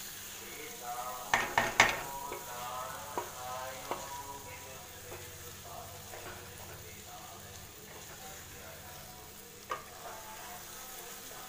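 Paneer cubes and masala sizzling as they fry in a pan while a wooden spatula stirs them. A few sharp knocks of the spatula against the pan, three close together about a second and a half in and a single one near the end.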